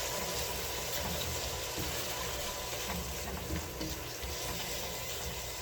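Steady hiss of oil and ingredients frying in a pan, over a low, even hum.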